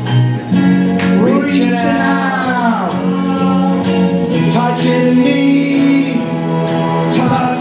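A man singing into a handheld microphone over backing music, holding long notes that slide in pitch.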